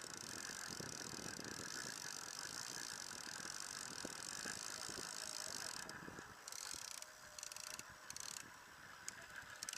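A fishing reel's ratchet clicking rapidly and steadily for about six seconds, then in short stop-start spells.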